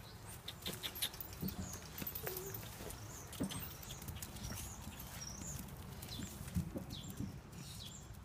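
Dogs moving about on straw, with a dog chain clinking and scattered rustling clicks and a few faint high chirps.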